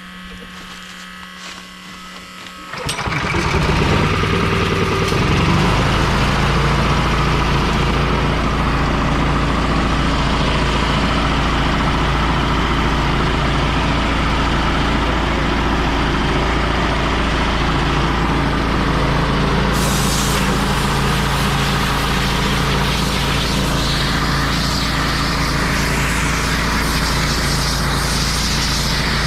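A machine engine and a loud rush of air start suddenly about three seconds in and run steadily, as the combine's radiator and condenser, packed with chaff stuck on by leaked diesel fuel, are blown out.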